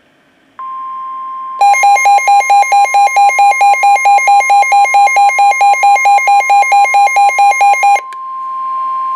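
NOAA Weather Radio's steady 1050 Hz warning alarm tone, announcing a new severe thunderstorm warning. About a second after it starts, the Midland WR120B receiver's own loud, pulsing alert beep joins in at about four beeps a second for some six seconds, then stops, leaving the steady tone.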